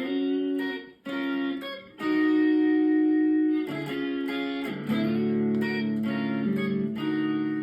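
Intro music: guitar playing sustained chords that change about once a second, with a brief gap just before one second in.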